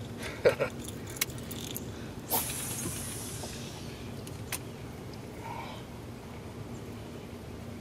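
Baitcasting fishing reel in use: a few light clicks, then a sharp sound about two seconds in followed by about a second of fading hiss as line runs off the spool on a cast, then another single click.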